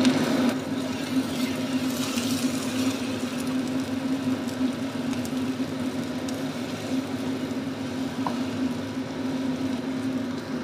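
Egg omelette sizzling in hot oil in a nonstick frying pan while a wooden spatula turns it, with a few light scrapes. Under it runs the steady hum of a kitchen range hood fan.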